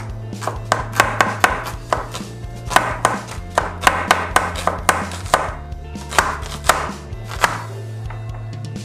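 Chef's knife slicing a red onion on a cutting board: quick runs of sharp knocks as the blade hits the board, with short pauses between runs. Low background music underneath.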